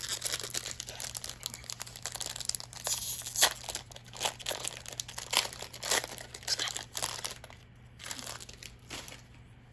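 A Magic: The Gathering booster pack's plastic wrapper being opened and crinkled by hand, an irregular run of crackles that thins out near the end.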